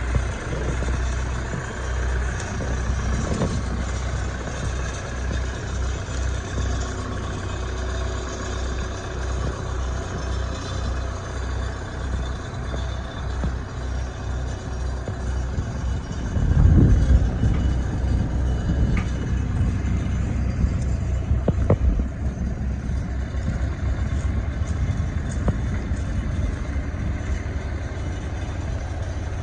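New Holland 555E backhoe loader's diesel engine running steadily with a low pulsing drone, swelling louder a little over halfway through, with a few sharp knocks afterwards.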